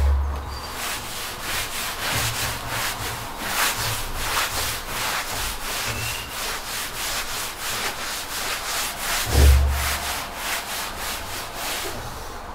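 Cloth rag rubbed back and forth over a wooden tabletop, working hard-wax oil into the wood, in quick, even strokes. There is a low bump about nine and a half seconds in.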